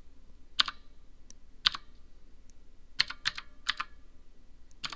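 Redragon Kumara K552 mechanical keyboard's clicky keys struck hard one at a time, about six separate keystrokes, a few close together around the middle. Each strike carries a faint springing echo, as if the key spring were ringing through the keyboard.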